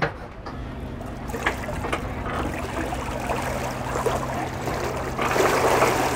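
X Shore Eelex 8000's electric drive switched on at the dock: a steady low hum starts about half a second in, so quiet that onlookers hear nothing. The propeller churns and splashes the water behind the stern, louder about five seconds in.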